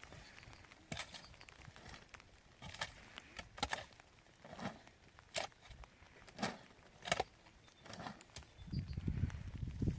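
A series of irregular light knocks, about one a second, with a low rumble building near the end.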